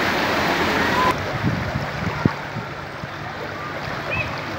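Floodwater rushing and churning through a flooded street. The rush drops suddenly to a softer wash about a second in, with a few faint short chirps over it.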